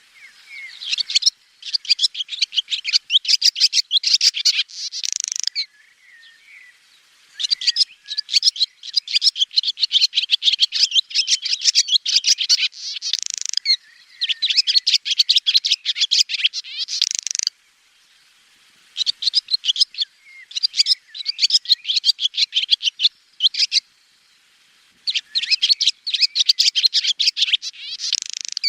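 Swallow twittering: fast, high chirping phrases in runs of several seconds, broken by three short pauses.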